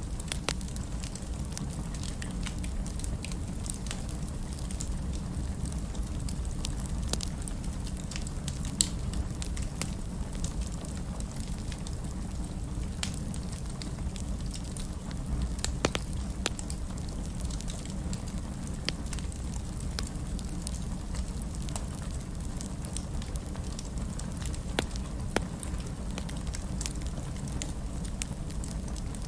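Fire burning in a fireplace: a steady low rumble with irregular crackles and pops throughout, a few of them sharper and louder.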